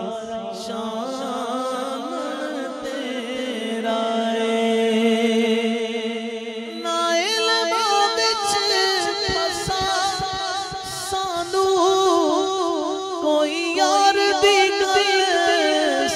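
A male naat singer sings long, wordless, ornamented notes into a microphone over a held low vocal tone. About seven seconds in, the melody moves higher and becomes more wavering and ornamented.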